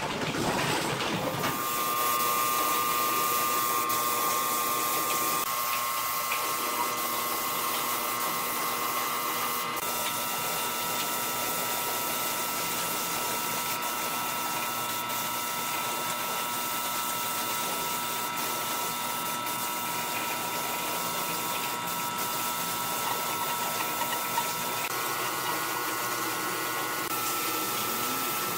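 Metal clatter of a steel-tube folding chair frame being folded, then a gravity-feed air spray gun hissing steadily as it sprays paint, with a few steady machine whine tones behind it.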